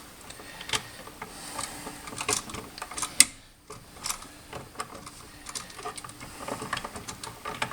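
Small irregular clicks and rattles of stiff electrical wires being handled and bent into place on a wall outlet, with one sharper click about three seconds in.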